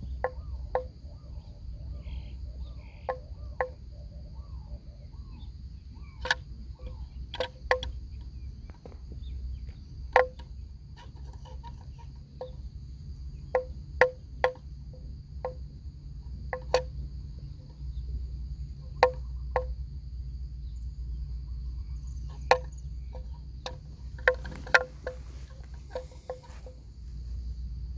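Water buffaloes cropping grass in a shallow flooded field: irregular sharp snaps, one every second or so, some in quick pairs. A steady high insect drone runs behind them.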